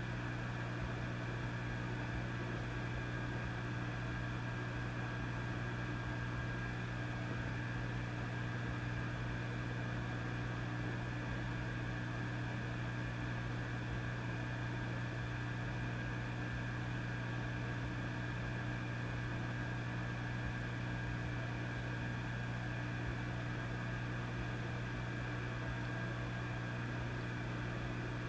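Vintage tube amplifier idling: a steady low hum with a few fainter higher tones above it, under a constant hiss of static.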